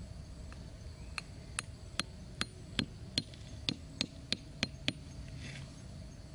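A small axe head hammering a thin wooden stake into sandy ground: about eleven sharp knocks, roughly three a second, starting about a second in and stopping near five seconds.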